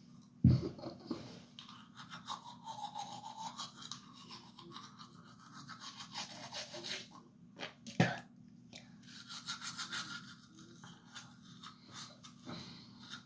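Manual toothbrush scrubbing teeth in quick repeated strokes, with two short knocks, one about half a second in and one about eight seconds in.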